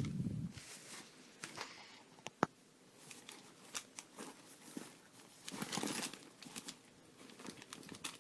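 Rustling and crinkling of packaging as a handbag is taken out of its dust bag and wrapping, in irregular bursts with a sharp click about two and a half seconds in.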